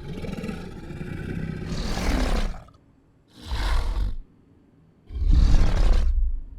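Carnotaurus roar sound effects: one long roar, then two shorter roars with brief silences between.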